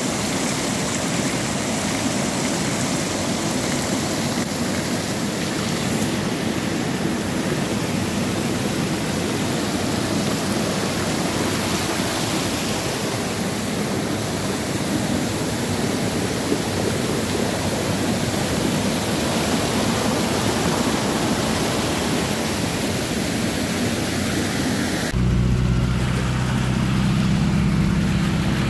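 Fast-flowing muddy floodwater rushing and churning in a steady, loud wash of noise. About 25 seconds in it cuts abruptly to a vehicle's engine running, heard from inside the vehicle.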